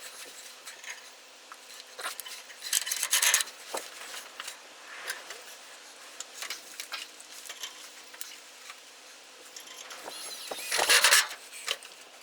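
Wooden plank being handled, with scraping and rubbing in two louder bursts, about three seconds in and again near the end, and scattered light knocks and clicks between them.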